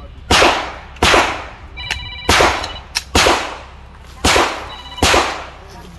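Pistol shots fired one at a time in a timed practical-shooting stage: about six sharp reports, roughly one a second, each trailing off in a short echo.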